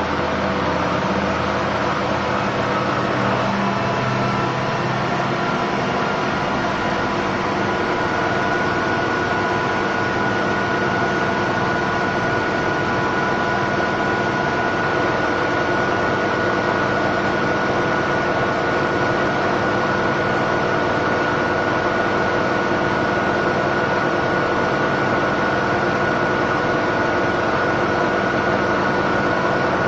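Miele W1 Classic front-loading washing machine in its spin cycle, the motor and drum running loud and steady, with a high whine that settles in about seven seconds in. The suspension springs and dampers clatter under an unbalanced load, a known fault of this model even with light loads.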